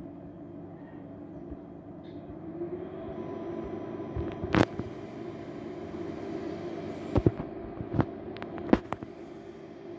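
A steady hum made of several low pitched tones, with sharp knocks or clicks over it: one about halfway through and four more in the last three seconds.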